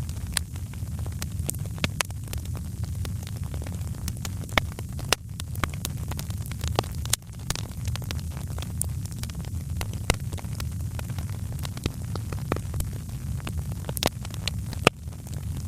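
Wood fire crackling in a fireplace: frequent irregular sharp crackles and a few louder pops over a steady low rumble.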